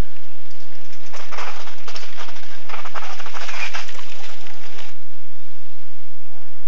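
Mountain bike passing close on a dirt trail: a rising clatter and crackle of tyres on dirt and the rattling bike, loudest as it goes by, stopping abruptly about five seconds in.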